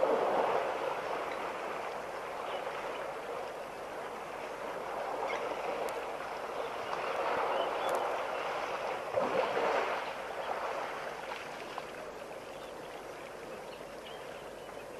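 African elephant wallowing in a shallow mud pool, sloshing and splashing water and mud. The splashing swells near the start and again around eight to ten seconds in, then dies down to a softer lapping.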